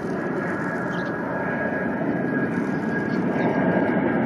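Jet engines of a Boeing 777-200 airliner climbing out after takeoff: a steady rumbling roar with a thin steady whine over it, growing slowly louder.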